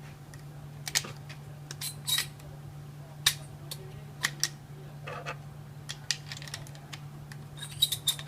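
Shells being pushed one after another into the tube magazine of an APS CAM 870 airsoft shotgun: a string of irregular sharp plastic-and-metal clicks and snaps, over a faint steady low hum.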